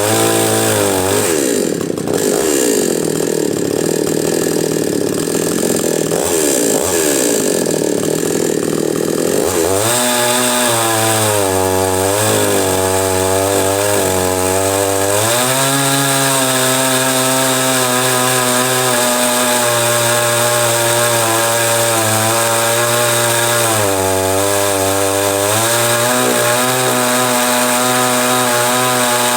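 Chinese 45cc two-stroke chainsaw, freshly ported and fitted with new piston rings, running continuously. For the first several seconds it runs at high revs, then drops back to a lower speed that wavers up and down a few times.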